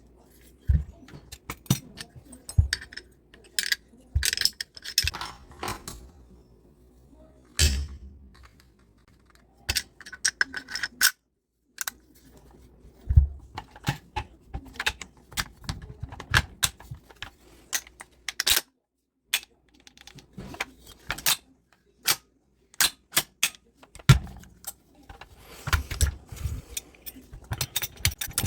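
Irregular clicks, knocks and light metallic clatter of airsoft rifle parts being handled and fitted together, with one heavier knock about two-thirds of the way through. The sound cuts out completely twice.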